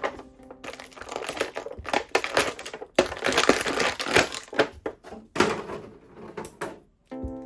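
Packaging crinkling and rustling as a toy is unboxed, in several stretches of handling. Background music comes back in near the end.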